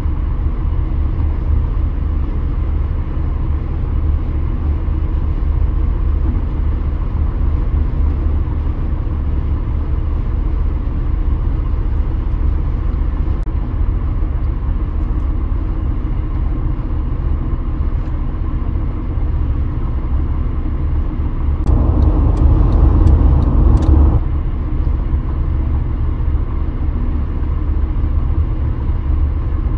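Steady low rumble of a car's road and engine noise at highway speed, heard from inside the cabin. About two-thirds of the way through it grows louder for a couple of seconds, with a quick run of sharp clicks.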